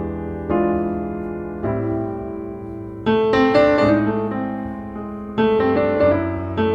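Background piano music: chords struck every second or two, each ringing and fading before the next.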